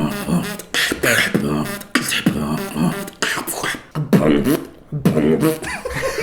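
Beatboxing: a vocal sound-effect pattern made with the mouth, repeated in short phrases about a second long, with bending pitched tones and short breaks between phrases.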